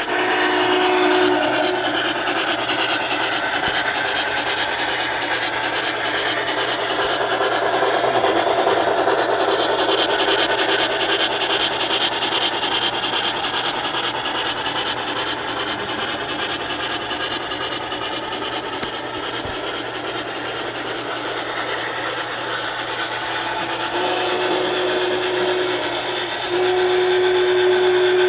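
Model Norfolk & Western class J 4-8-4 steam locomotive running with its passenger train, its sound system blowing a steam whistle briefly at the start and in two long blasts near the end, over the steady running noise of the train on the track.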